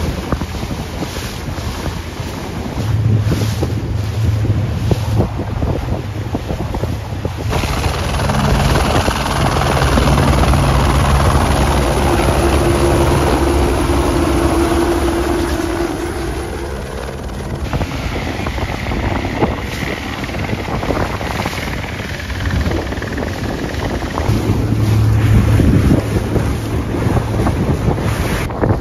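Wind buffeting the microphone over waves and spray at sea. From about 8 to 17 seconds a helicopter is close overhead, its rotor and turbine giving a steady hum. After that it cuts back to wind and water.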